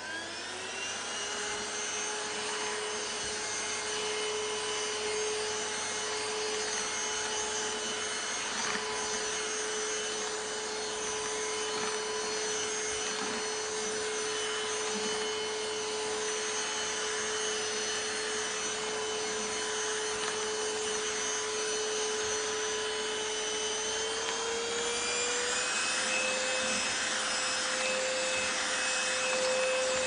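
Kessler K-9998 cordless stick vacuum cleaner running on a rug. Its motor finishes spinning up with a rising whine in the first second, then holds a steady whine that steps slightly higher in pitch about 24 seconds in.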